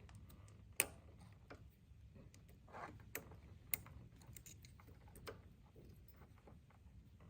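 Faint, scattered small metallic clicks and ticks of hands and a tool working at the e-bike's chain to free a link, with one sharper click about a second in.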